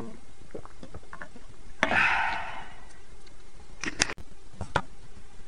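Handling noise as the camera is moved by hand: scattered light clicks and knocks, a short rustle about two seconds in, and a few sharp clicks about four seconds in.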